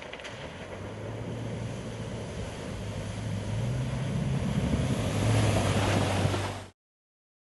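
An engine running with a steady low hum, growing louder, then cutting off abruptly near the end.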